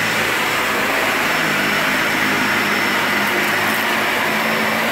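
Dyson Ball Animal 2 upright vacuum cleaner running steadily while pushed over carpet, its motorised brush bar switched on: an even rush of air with a faint high whine.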